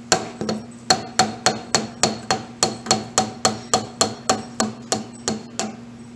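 Dead blow hammer striking a cast-iron milling machine table end cap in quick, even blows, about three to four a second, to knock the tight end cap loose. The blows stop shortly before the end.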